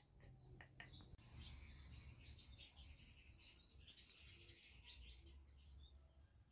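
Near silence: faint room tone with faint high bird chirping in the background.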